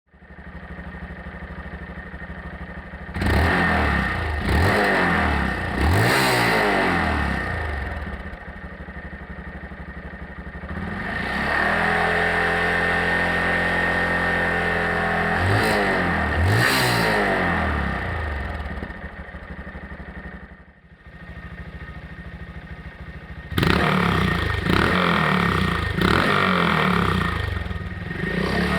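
Honda Monkey 125's single-cylinder four-stroke engine through a DELTA Barrel 4-S aftermarket silencer, idling and being revved in quick blips. About halfway through the revs rise and are held higher for several seconds before falling back to idle, and near the end come a run of sharp blips.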